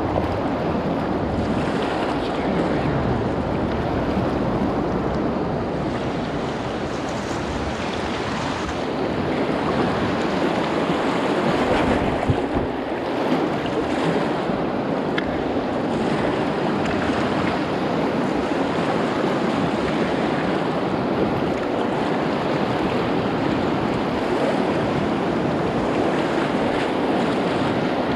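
Rushing river water running through rapids, a steady loud hiss, with wind buffeting the microphone. A couple of brief knocks come a little after the middle.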